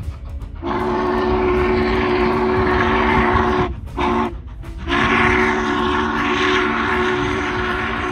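Norfolk and Western #611's steam whistle blowing several notes at once in a long blast, a short blast, then another long blast: the end of a long-long-short-long grade-crossing signal.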